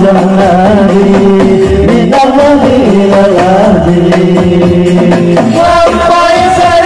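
Hadroh ensemble performing sholawat through a PA: male voices singing long, ornamented held notes that bend in pitch, over a steady beat of hand-struck rebana frame drums.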